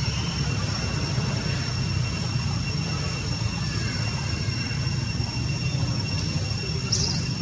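A steady low rumble with two thin, steady high-pitched tones running above it.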